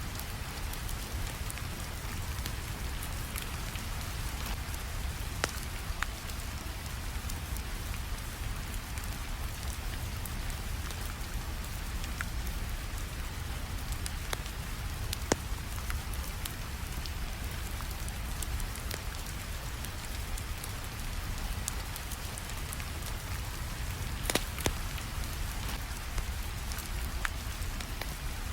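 Steady rainfall hiss with a low rumble underneath, and the occasional sharp pop of a crackling wood fire scattered through it, with two of the loudest pops close together near the end.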